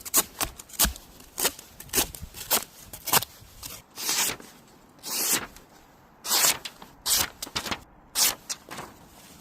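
Folding knife with an M390 steel blade making repeated cutting strokes, short scraping slices about two a second, with three longer drawn cuts around the middle.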